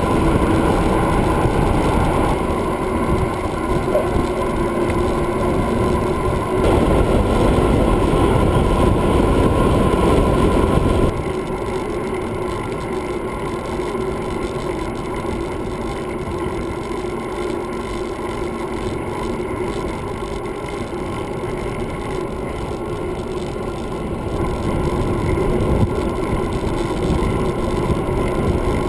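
Wind and road rush on a bicycle-mounted GoPro during a fast downhill ride, a steady loud roar of air over the camera with tyre noise underneath. It drops abruptly to a lower level about eleven seconds in.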